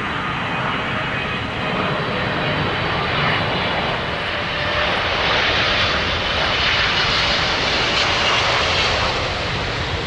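Jet airliner's engines passing along the runway: a steady rushing noise with a high whine, growing louder through the middle and easing off near the end.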